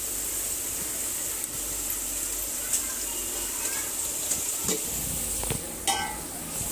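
Oil sizzling steadily as slices of brinjal and potato fry in a pan, with a few light clicks. About six seconds in comes a short ringing clink.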